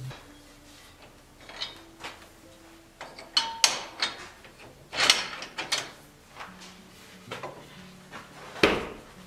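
Irregular knocks and clunks from a wooden carriage wheel with a steel-channelled hard rubber tire being handled and taken off the rubber tire machine, with a brief metallic ring a few seconds in.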